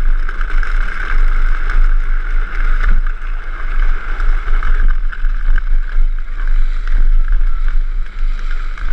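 Drift trike coasting downhill at speed: wind rushes over the camera microphone over the steady rumble and scrape of its hard plastic rear wheels rolling on asphalt, with a few small knocks from bumps in the road.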